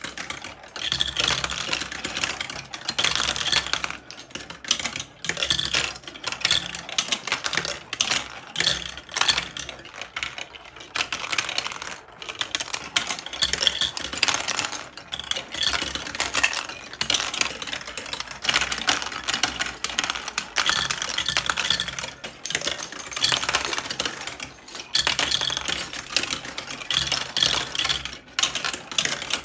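Dense, steady plastic clicking and clattering from a building-brick marble run, with many small sharp clicks close together.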